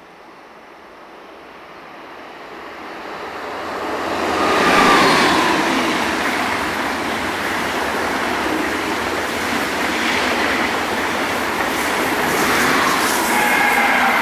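Deutsche Bahn ICE high-speed train approaching and passing close by: the noise grows steadily to a loud peak about five seconds in, with a falling whine as the front end goes past, then a steady loud rush of coaches rolling by on the rails, with a whine rising again near the end.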